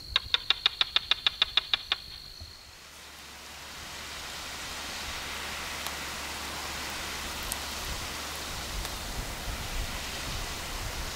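About a dozen quick, loud clicks over a high steady tone, ending about two seconds in, under the channel's logo card. After that, a steady, even rushing hiss of outdoor ambience.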